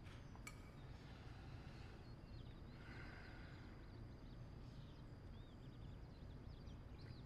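Near silence: quiet room tone with a low hum, a soft click or two about half a second in, and faint, scattered high chirps.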